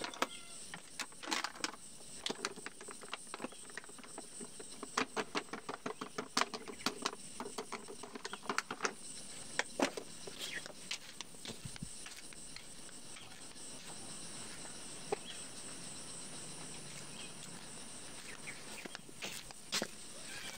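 Plastic fertiliser packet being cut open and handled, a dense run of crinkles and clicks over the first half. After that, a steady high insect buzz carries on in the background.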